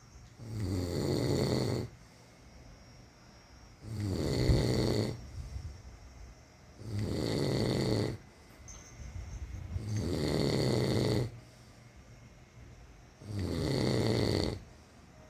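A sleeping person snoring: five snores, each about a second and a half long, coming about every three seconds, with quieter breathing between them.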